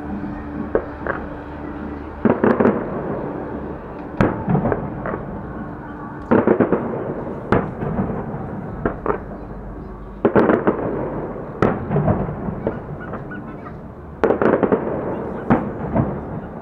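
Fireworks going off at a distance: about eight bursts in quick succession, each a sharp bang followed by a second or so of crackling.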